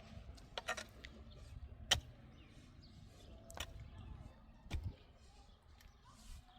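A handful of sharp knocks and clicks at uneven intervals over a low rumble, the clearest about two seconds in.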